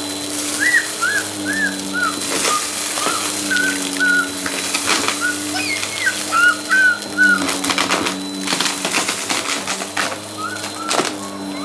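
Bissell upright vacuum cleaner running steadily over a rug, with quick clicks and rattles as confetti and sequins are sucked up. Short high chirps sound over the motor again and again.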